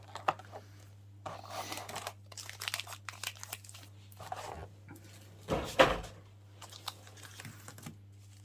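Pokémon booster pack's foil wrapper crinkling and being torn open, with scattered crackles and one louder crackle about five and a half seconds in.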